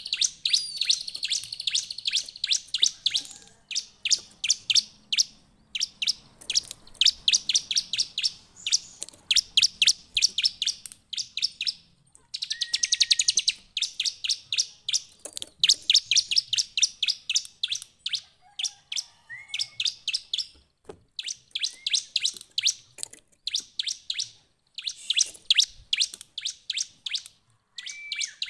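Bar-winged prinia (ciblek) singing: rapid runs of sharp, high chirps, each run a second or two long and broken by short pauses, with a denser trill about halfway through.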